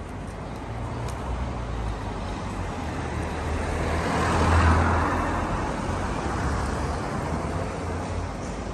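A car drives past on the street, its noise swelling to a peak about halfway through and then fading away.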